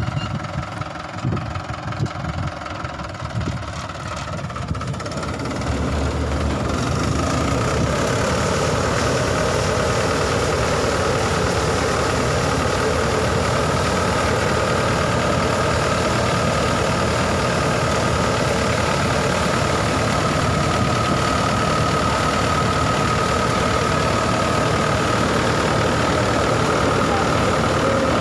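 Swaraj 843 XM tractor's diesel engine driving a tractor-coupled thresher: the noise rises over a couple of seconds about a fifth of the way in, then holds as a steady, loud machinery drone with a thin high whine running through it.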